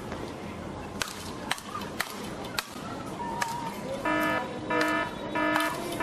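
Speedball rackets striking the tethered ball in a rally, several sharp clicks in the first few seconds. About four seconds in, a loud buzzer-like beep sounds four times, evenly spaced.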